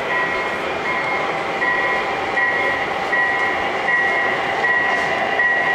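O gauge model diesel locomotives running on a three-rail layout, their onboard sound playing a steady running noise with a repeating two-note tone, about one note every three-quarters of a second.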